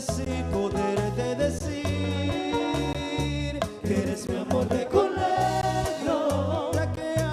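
Live bachata band playing, with bass guitar and percussion keeping a steady beat and wavering sung vocal lines in the second half.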